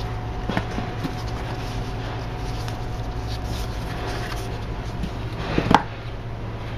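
Cardboard box and foam insert being handled as a solid-state drive is lifted out: light taps and rustles, with one sharp knock about three-quarters of the way through, over a steady low hum.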